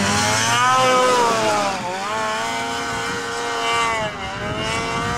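Snowmobile engine under throttle as the sled carves and climbs a snowy slope, its pitch rising and falling several times as the rider works the throttle.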